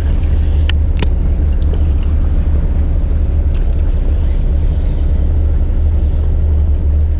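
Fishing boat's engine idling, a steady low rumble, with two short sharp clicks about a second in.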